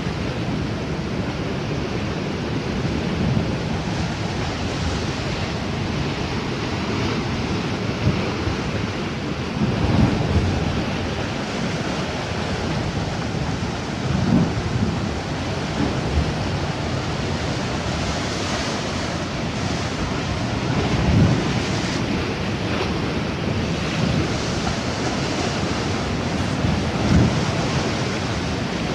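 Sea waves washing in, with wind buffeting the microphone in several low rumbling gusts.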